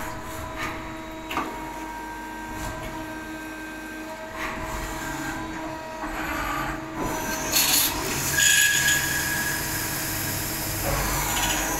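Spinner TC77-SMCY CNC lathe running, with a steady machine hum and a few short clicks. From about seven seconds in a louder hiss comes in, with a brief high whine, as the tool cuts the spinning workpiece under coolant spray.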